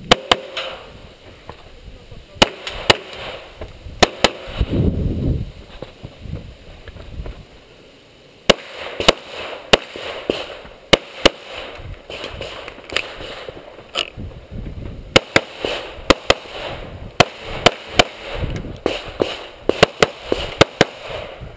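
Handgun shots fired in quick pairs and short strings from the shooter's own pistol during a timed IPSC course of fire, about thirty in all, with a pause of a few seconds partway through before the shooting resumes in faster pairs.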